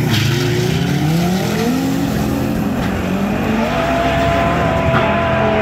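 Two drag cars, one a Honda Civic coupe, launching off the start line and accelerating away, their engines revving up in repeated rising sweeps as they shift through the gears. A steady high-pitched tone comes in about two-thirds of the way through.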